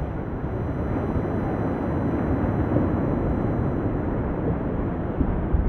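Wind buffeting the microphone: a steady, rough low rumble.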